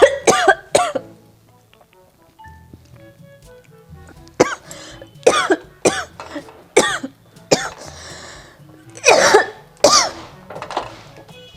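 A woman coughing in short fits, set off by the fumes of dried red chillies roasting on a gas flame. There are three quick coughs at the start, a run of five more a few seconds later, and two longer, louder ones near the end.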